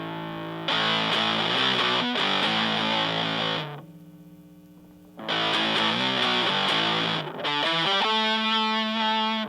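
Fender Stratocaster played through a Super Power-Fuzz, a modded Big Muff-style fuzz pedal on its silicon clipping diodes, into a Fender Blues Junior amp: heavily fuzzed guitar. There are two loud passages with a quieter ringing gap between them, then a held note or chord that stops at the end.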